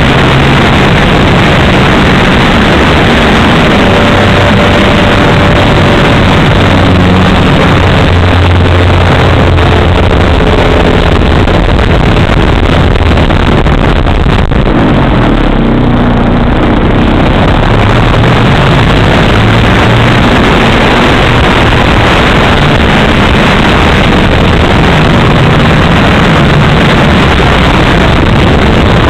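Gasoline two-stroke engine of a large 3W-powered RC aerobatic plane running loudly, heard from an onboard camera with wind rushing over the microphone. Its pitch shifts as the throttle changes through the manoeuvres, and the sound turns briefly duller about halfway through.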